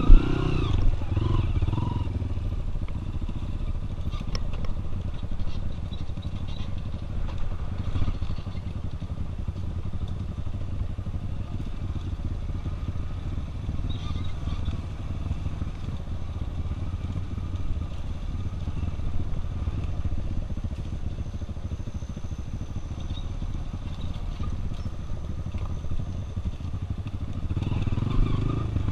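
Single-cylinder trail motorcycle engine running at low, fairly steady revs over a slow off-road section, with a sharp knock at the start and a few small knocks and rattles from the bike.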